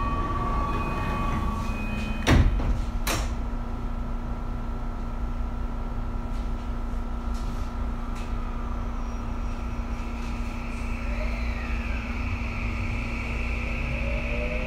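Tokyu 2020 series commuter train at a station stop. A short chime tone sounds, then the sliding doors shut with two heavy knocks a little under a second apart, about two seconds in, over a steady hum. About ten seconds in, the traction motors start up with a rising whine as the train pulls away.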